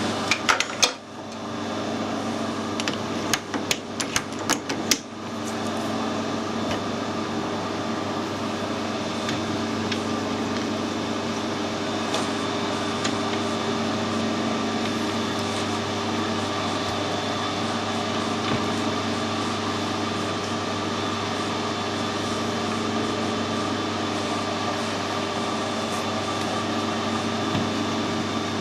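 A few metallic clicks and knocks. Then, about five seconds in, a metal lathe runs steadily with a constant hum made of several steady tones while the threaded bolt blank is parted off to length.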